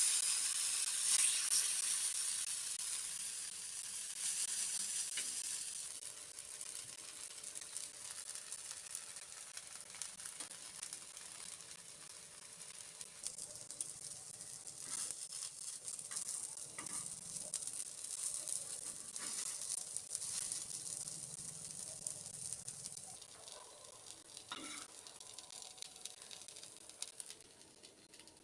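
Food frying in hot oil: a loud sizzle that has just begun dies down over the first few seconds to a steady, quieter sizzle. It is broken by occasional light knocks of stirring.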